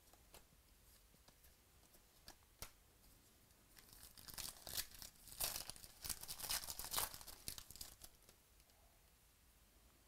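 Foil wrapper of a 2017 Chronicles baseball card pack being torn open and crinkled for a few seconds, starting about four seconds in. Before that, a few light clicks from cards being handled.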